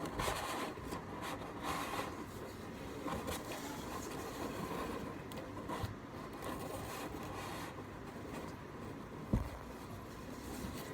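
Irregular rubbing and scraping against a cardboard box, with small clicks and a dull thump near the end.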